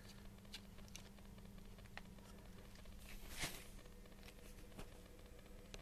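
Faint clicks and one brief louder scrape about three and a half seconds in, from hard plastic parts being handled as the plastic fan is turned onto the dryer motor's shaft, over a faint steady low hum.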